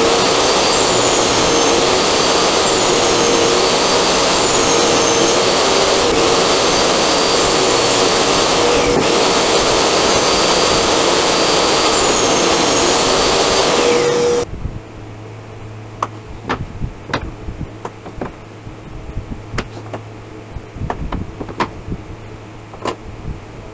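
Portable table saw running with a steady whine while its blade cuts a pine block pushed along a sled. The saw noise stops abruptly about 14 seconds in, and scattered light knocks and clicks of wood and tools being handled follow.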